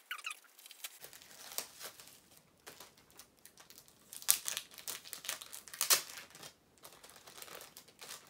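Crinkly packaging and sellotape being pulled and torn off a small wrapped item by hand, in irregular bursts, loudest about four and six seconds in.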